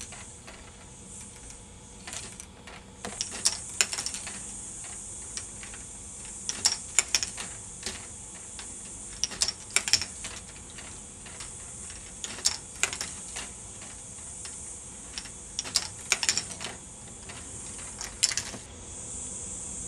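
K'nex ball machine running: its plastic balls and parts clack in irregular clusters of sharp clicks every few seconds, over a steady high hiss.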